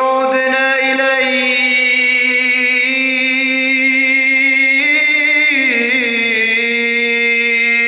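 A man singing an Islamic devotional chant, holding one long drawn-out vowel. The note is steady at first, wavers in an ornamented run about five seconds in, then slides down to a slightly lower note that is held.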